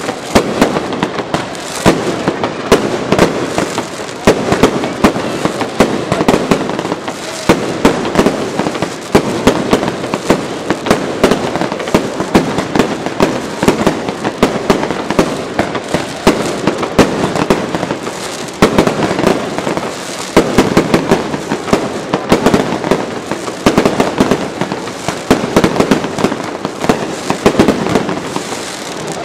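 Aerial fireworks going off in rapid, continuous succession: a dense run of sharp bangs with crackling between them, without a pause.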